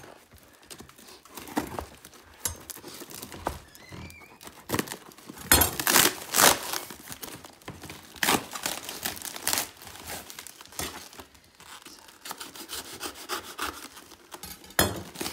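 Packaging being pulled off a car bumper: irregular crinkling, rustling and tearing of wrapping, loudest in a cluster of bursts in the middle.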